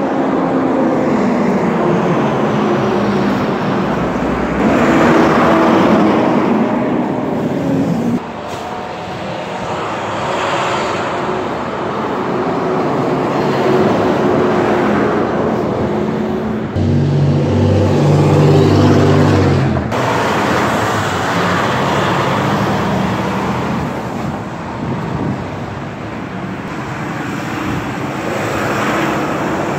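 Street traffic passing close by one after another, engines swelling and fading as each vehicle goes by, including a garbage truck's diesel engine about halfway through. A strong low engine hum is heard from about 17 to 20 seconds in.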